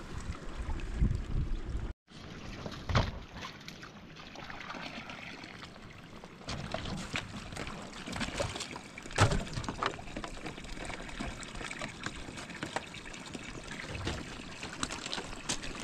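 Water trickling and pouring, with scattered small clicks and knocks, the loudest about three and nine seconds in.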